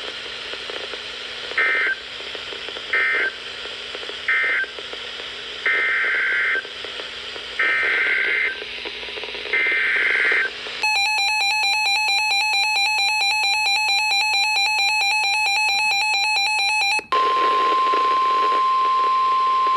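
Emergency Alert System tones: three short warbling data bursts (the end-of-message code), then three longer warbling SAME header bursts announcing the next warning. These are followed by the harsh two-tone EAS attention signal for about six seconds, which cuts off suddenly into a steady single-pitch alert tone near 1 kHz. Faint radio hiss sits underneath throughout.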